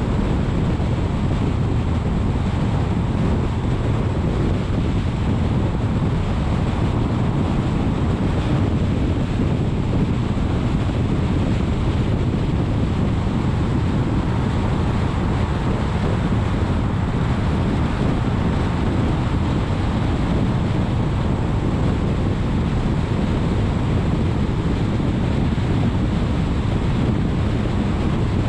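Steady rushing wind and tyre noise from a car cruising at freeway speed, heard from a camera mounted on the car's hood with wind buffeting the microphone.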